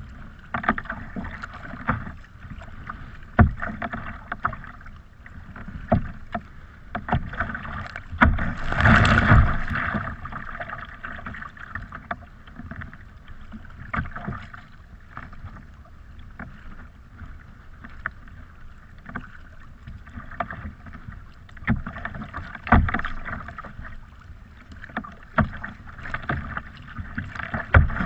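Choppy sea water slapping and splashing against a kayak's hull as it moves through the waves, with sharp knocks scattered throughout. A bigger rush of water comes about eight to ten seconds in, and again at the very end as the bow plows into a wave and throws up spray.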